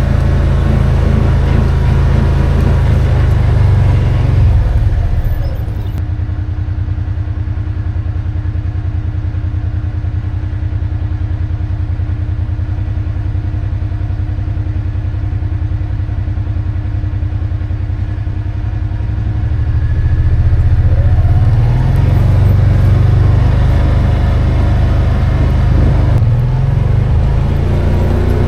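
A motor engine running steadily, dropping to a lower, slower note about five seconds in and picking back up around twenty seconds.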